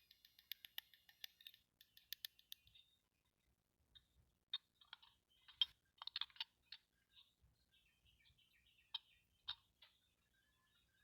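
Small plastic toy pieces being handled: a quick run of rapid, even clicks, then scattered light clicks and taps.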